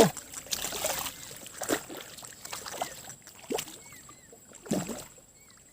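Scattered small splashes and knocks in shallow water as a small hooked snakehead is handled and landed.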